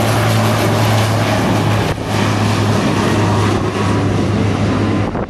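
Single-engine turboprop airplane on the ground with its propeller turning, giving a steady low drone. The drone briefly drops about two seconds in.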